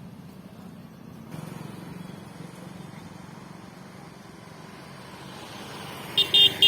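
Road traffic noise, a steady rumble of passing vehicles. Near the end a vehicle horn sounds in short toots.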